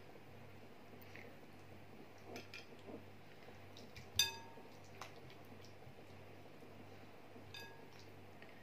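Ceramic baking dish clinking as it is handled: a few soft touches, then one sharp ringing clink about four seconds in and a fainter one near the end, over a steady low hum.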